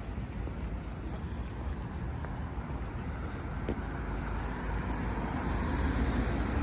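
Road traffic going by on a city street: a steady low rumble of engines and tyres that grows louder toward the end as a vehicle approaches.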